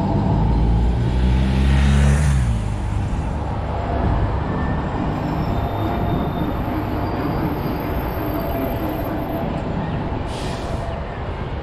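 Street traffic: a heavy vehicle passes with a low engine hum that drops in pitch and fades about two and a half seconds in, leaving a steady rumble. There is a brief hiss near the end.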